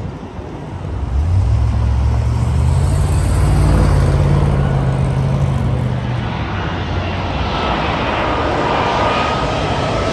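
Emirates Airbus A380's four Rolls-Royce Trent 900 turbofans growing louder as the airliner comes in low on approach. A deep low rumble in the first half gives way to a broader jet roar with a high engine whine in the last few seconds.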